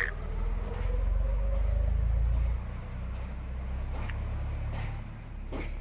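Low, steady rumble of a motor vehicle engine running, louder for the first two and a half seconds, with a faint whine rising in pitch over the first two seconds.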